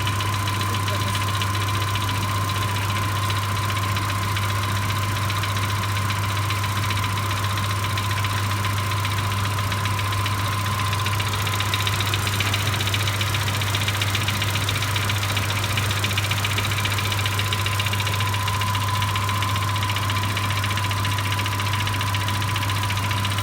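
Citroën C4's 1.6 NFU petrol four-cylinder running at idle with a faint, steady knock. The mechanic puts the knock down to a piston loose on its gudgeon pin rather than the cylinder head.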